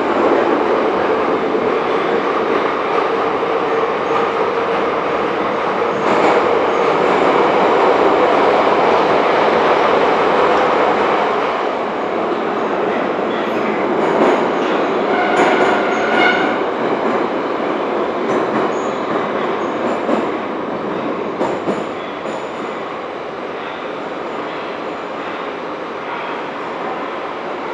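Moscow Metro Ezh3 track-measuring car running through the tunnel, heard from inside the car: a steady rumble of wheels on rail with a held motor tone. A brief high wheel squeal comes about halfway through, a few clicks follow, and near the end it runs quieter as the train slows for the next station.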